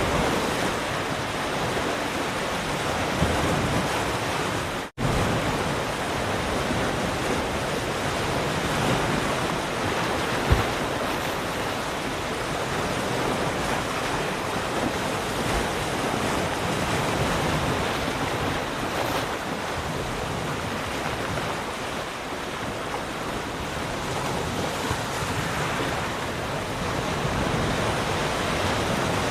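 Ocean surf washing in steadily, a continuous hiss of breaking waves. It cuts out for a split second about five seconds in.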